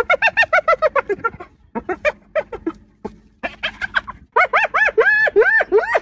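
Spotted hyena giggling: quick runs of short, high yelping notes, each rising and falling in pitch, about five or six a second. They come in four bouts with brief pauses, and the last bout, starting a little past the middle, is the loudest.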